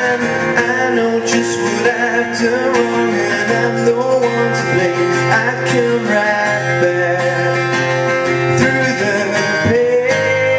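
Acoustic guitar strummed steadily while a man sings over it.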